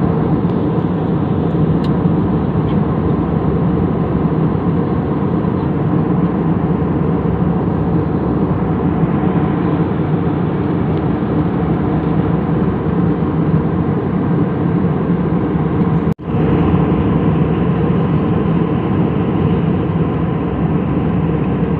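Steady engine and airflow noise heard inside an airliner's passenger cabin in flight, with a brief break about 16 seconds in.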